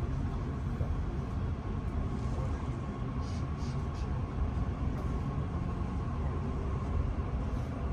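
Cabin sound of a Francilien (Z 50000) electric commuter train running along the line: a steady low rumble from the wheels and running gear, with a faint steady whine over it.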